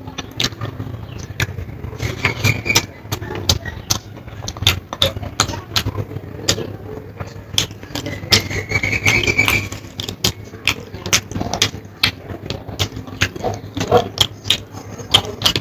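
Close-up eating sounds: wet chewing and lip smacks with many irregular short clicks, over a steady low hum. A brief high squeal sounds twice, about two and a half and nine seconds in.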